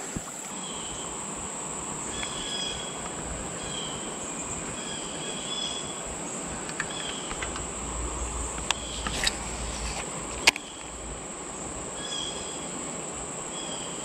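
Outdoor riverside ambience: a steady high insect drone with short chirps repeating every second or two, and a few sharp clicks in the second half.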